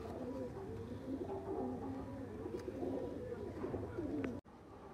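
Domestic pigeon cooing, a low wavering coo repeated over and over, cutting off suddenly near the end.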